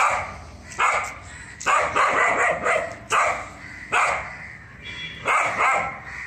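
Young Belgian Malinois barking, short sharp barks repeated about once a second.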